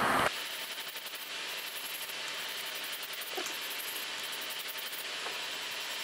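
Bandi electric nail drill with a cone-shaped gel-removal bit, steadily grinding gel off a long nail with a light, even hiss.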